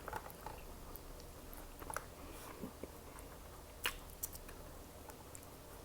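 Close-up eating sounds from a person chewing saucy shrimp and sausage: soft, wet chewing with scattered sharp mouth clicks and smacks, the loudest about four seconds in.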